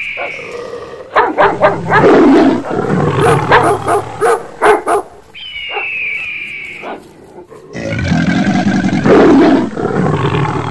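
Loud, deep animal growls and roars in several bouts, broken by abrupt cuts. About five seconds in, a high falling tone with a few sharp clicks sounds briefly.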